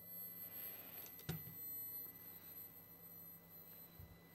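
Faint, steady high-pitched electronic tone over a low hum from the amplifier test setup, with the amplifier driven by a 1 kHz sine at about 100 W. A single sharp click comes about a second in, and a faint knock near the end.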